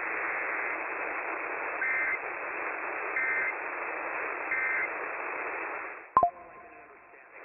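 Radio static hiss carrying three short EAS end-of-message data bursts, warbling digital tones about a second and a half apart. About six seconds in a loud click cuts through and the hiss drops away.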